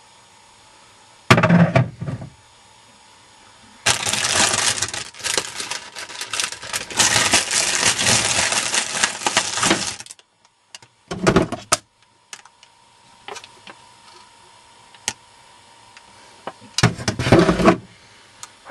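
Someone rummaging through a fridge: food containers and packaging are knocked, shifted and rustled in several bursts. A sudden clatter comes about a second in, a long stretch of rummaging follows from about four to ten seconds, and shorter clatters and clicks come after it.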